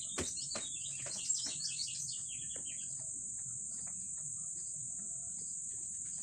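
Insects droning steadily at a high pitch, with a bird giving a quick run of short falling chirps in the first two or three seconds and a few light clicks.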